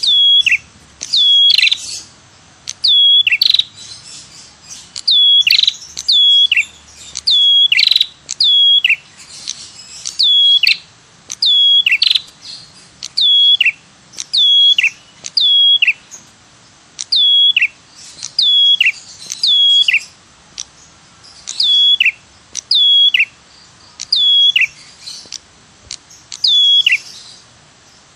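Ashy tailorbird (prenjak kepala merah) calling a sharp 'tirr tiirr' again and again, a lure call. Each note is high and drops quickly in pitch. The notes mostly come in pairs or threes, about one a second, with short pauses between groups.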